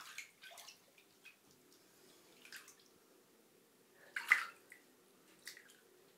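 Kittens splashing and paddling in shallow bathwater in a tub: a few short, soft splashes, the loudest about four seconds in.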